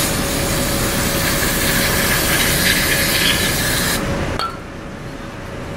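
Aerosol carburetor cleaner spraying into a metal carburetor float bowl in one steady hiss, which cuts off suddenly about four seconds in.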